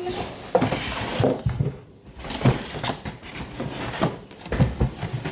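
Irregular knocks, taps and rustling from handling a new blender's base unit and its packaging during unboxing.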